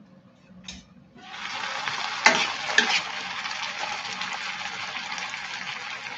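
Glass pan lid lifted with a light click about a second in, releasing a steady sizzle of chayote strips simmering in their own juice. A metal spoon knocks twice against the pan as the chayote is stirred.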